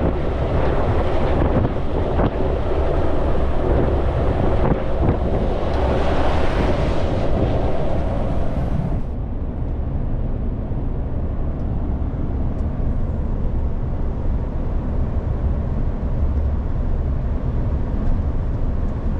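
Wind rushing over the microphone above the low steady rumble of a moving vehicle. About nine seconds in, the wind hiss cuts off suddenly, leaving only the low drone of the engine and road.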